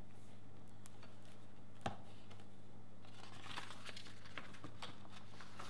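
Hardcover picture book being opened and its pages turned: a single soft knock about two seconds in, then light paper rustling, over a steady low hum.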